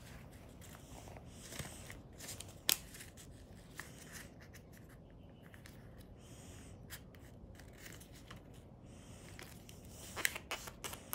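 Sheet of origami paper (kami) being folded and creased by hand: soft paper rustling with a few sharp crisp clicks as folds are pressed, a loud one about a quarter of the way in and several close together near the end.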